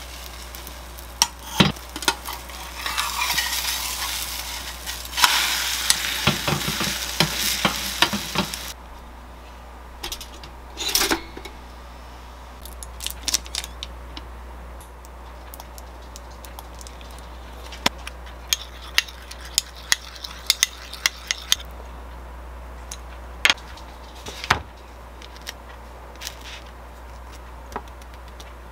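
Egg and duck meat frying in a pan on a gas hob, sizzling with crackles, then cutting off suddenly after about eight or nine seconds. After that a metal spoon clicks and scrapes against a bowl and plate in sparse taps as ketchup-mayo sauce is mixed and spread on a bagel.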